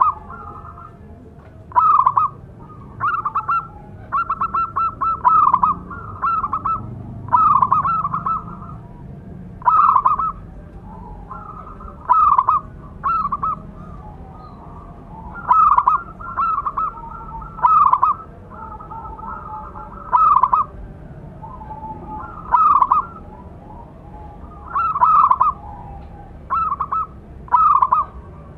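Zebra dove (perkutut) singing: phrases of rapid, staccato cooing notes, one every second or two with short pauses, some phrases stretched into longer strings of quick notes.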